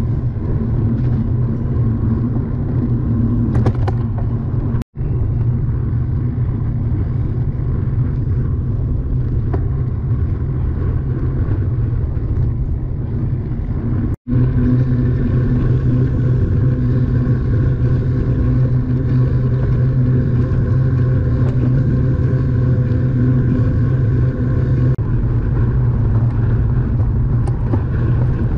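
Steady low rumble of moving-vehicle noise, broken twice by a split second of silence, about five seconds in and again about fourteen seconds in.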